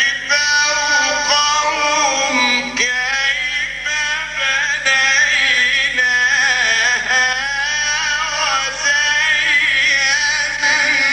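A male reciter chanting the Quran in the melodic mujawwad style, holding long, wavering melismatic notes with only brief pauses for breath.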